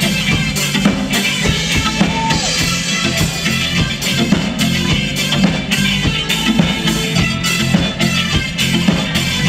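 Live cover band playing an instrumental break of a pop-rock song: drum kit keeping a steady beat, with bass and electric guitar.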